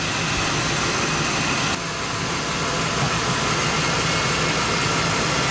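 Motorhome's engine idling with a steady low hum. The level drops slightly about two seconds in.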